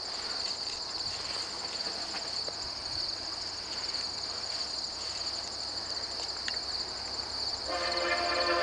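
Crickets chirping steadily in a continuous high, pulsing trill. Near the end the horn of a distant Via Rail passenger locomotive begins to sound, a chord of several steady tones.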